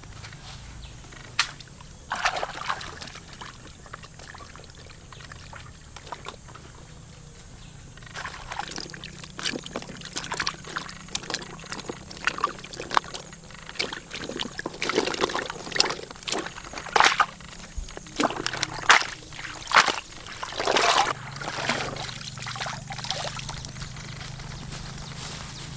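Shallow water splashing and sloshing in irregular bursts, sparse at first and busier through the middle, as of someone wading or working in floodwater.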